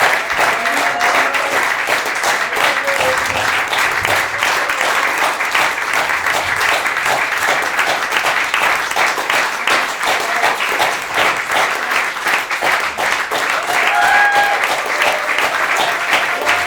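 Audience applauding steadily after a live performance, dense continuous clapping, with a few short calls from the crowd, the clearest near the end.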